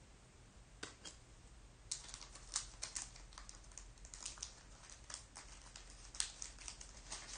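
Panini Diamond Kings card pack wrapper being handled and picked at to open it: faint, irregular crinkles and clicks, a couple about a second in, then a quick scattered run from about two seconds on.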